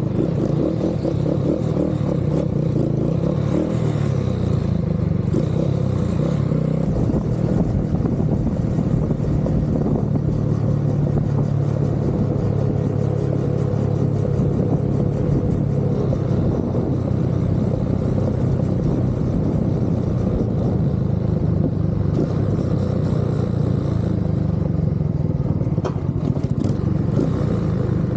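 TVS Apache RTR motorcycle's single-cylinder engine running as the bike is ridden, its pitch shifting a little with the throttle.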